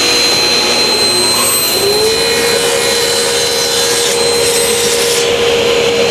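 Table saw running at full speed with a steady whine while its tilted blade cuts through a spline sled and the edge of a hardwood spline blank pushed across it.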